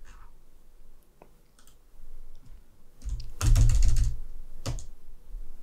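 Typing on a computer keyboard: a quick run of keystrokes about three seconds in, with the 0 key pressed five times, and a few lighter clicks before it and a single keystroke just after.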